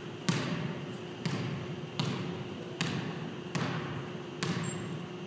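A basketball being dribbled slowly and evenly on a hardwood gym floor, about six bounces a little under a second apart, each one echoing in the large hall.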